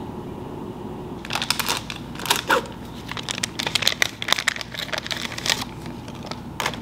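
Packaging crinkling as it is handled: a burst of irregular crackles about a second in that lasts several seconds, with one more crackle near the end, over a steady low room hum.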